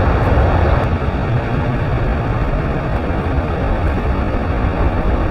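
Rhine Falls waterfall roaring as a loud, steady rush of water, heavy in the low end.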